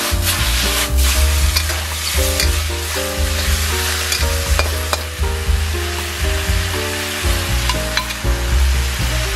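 Vegetables sizzling as they are stir-fried in a wok, a metal spatula tossing and scraping them with a few sharp clicks against the pan. Background music with a bass line and a stepping melody plays throughout.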